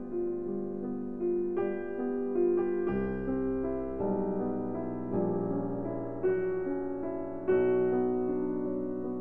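Piano music, with new notes struck about once a second over held chords.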